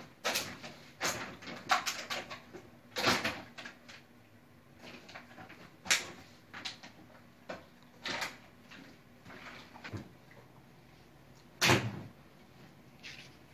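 Irregular rustles, knocks and thumps of clothing and bags being handled and packed into suitcases, with a louder thump a little before the end.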